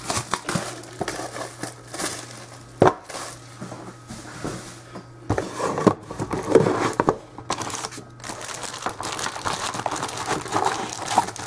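Plastic wrapping and cardboard crinkling and rustling as a sealed box of trading cards is opened and its foil packs are handled, with a few sharp clicks along the way.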